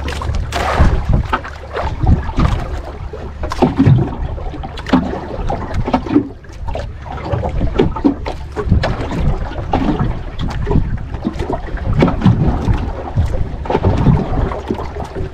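Water slapping and knocking irregularly against a small fishing boat at sea, over a steady low rumble of wind on the microphone.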